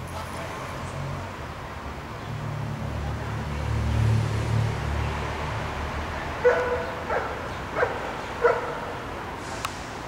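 A dog barking four times, about two-thirds of a second apart, over a low traffic rumble that swells and fades in the first half.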